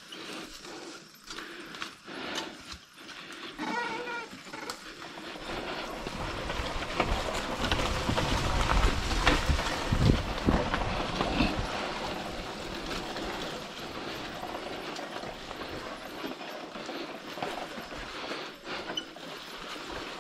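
Trail motorcycle engine revving hard on a slippery uphill climb. It grows louder to a peak about halfway through, with heavy low thumps, then eases off.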